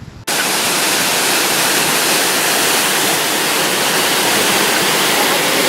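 Ouzoud Falls' water pouring down, heard close up as a loud, steady rushing roar that starts abruptly about a quarter of a second in.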